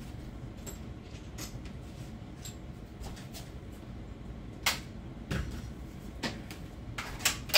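A steady low hum with five or six sharp clicks and knocks of hard objects on a tabletop in the second half, the loudest near the end.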